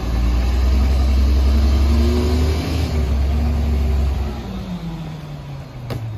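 Diesel engine of a Mack MR rear-loader garbage truck revving as the truck pulls ahead, its pitch rising and then falling away as the revs drop about four seconds in.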